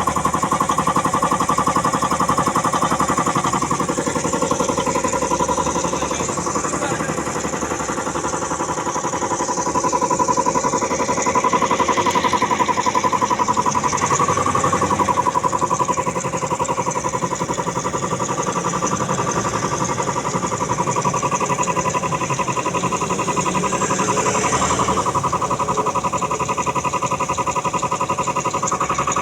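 Puma 2090 air compressor running steadily under test, a loud, continuous mechanical chugging with a fast even rhythm.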